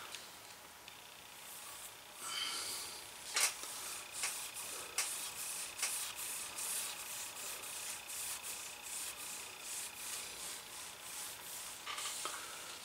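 A wool dauber rubbing black leather dye onto holster leather: soft, repeated scrubbing strokes, roughly two a second, with a sharp click about three and a half seconds in.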